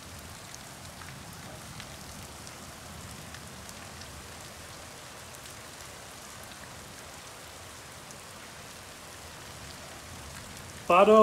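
Steady heavy rain falling on the yard and the shed roofs, with faint scattered drips. Just before the end a voice calls out loudly and briefly.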